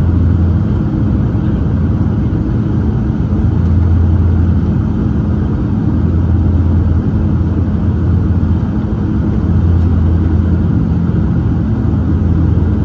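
Cabin noise of a Dash 8-400 turboprop airliner descending on approach: the steady drone of its twin Pratt & Whitney PW150A engines and six-bladed propellers. A deep hum swells and fades every few seconds.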